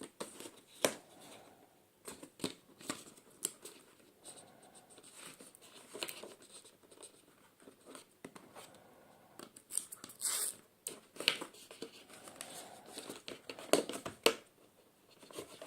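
Cardboard box and plastic packaging being handled, with scattered rustling, scraping and light knocks as items are worked at to get them out of the box. A louder scrape comes about ten seconds in.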